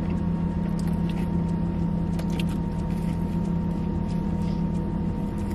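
Steady low hum of a parked vehicle running, heard from inside the cab, with a few faint scattered ticks.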